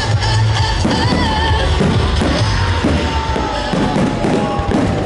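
Music with a strong low bass and a long held tone that slowly falls, mixed with repeated bangs from aerial firework shells bursting.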